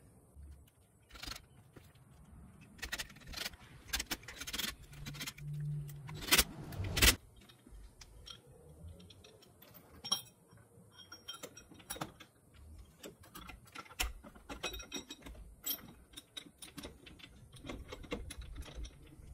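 Irregular metallic clinks and rattling as a trailer tongue jack and its safety chains are handled, with a couple of louder knocks about six to seven seconds in.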